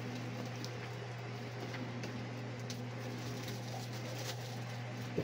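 Room tone: a steady low hum with a faint even hiss behind it.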